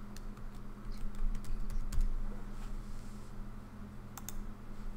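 Computer keyboard keys tapped as a number is typed in: a few scattered, separate clicks over a steady low hum.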